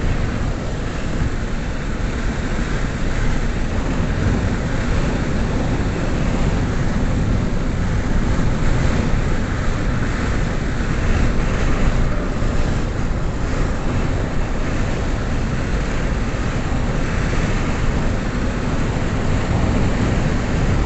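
Steady road and wind noise inside a moving car: an even rush of tyre and wind sound that holds level throughout.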